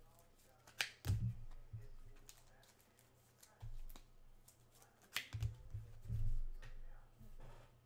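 Trading cards and card packs being handled on a table: scattered sharp clicks and soft dull thumps, the loudest about one second and five seconds in.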